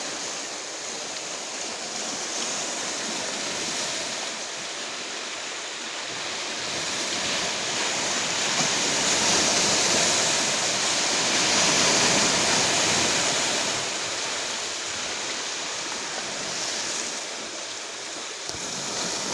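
Rough sea: heavy surf breaking and washing on the shore in a continuous rush, swelling to its loudest a little past the middle and then easing.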